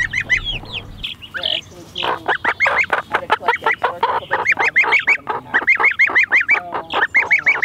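A gosling and chicks peeping: quick runs of short, high peeps, sparse at first and then about four or five a second from about two seconds in.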